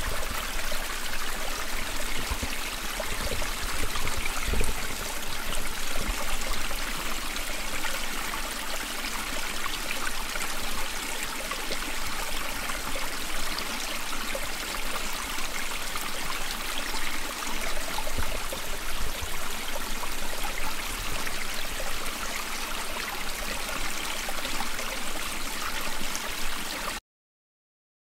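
Steady rush of flowing creek water in a forest, cutting off suddenly near the end.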